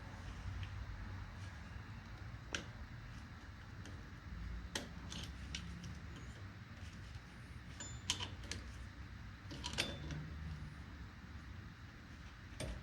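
Scattered light metallic clicks and taps of pliers working a cotter pin out of the castle nut on a front axle hub, spaced irregularly a few seconds apart, over a low steady hum.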